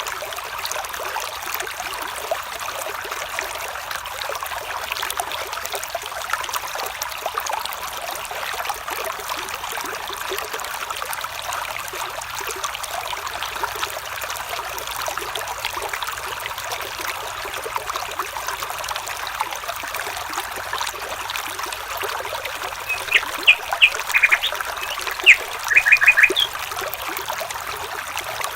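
Water of a small stream trickling steadily. A few short, high calls from a small animal stand out between about 23 and 26 seconds in.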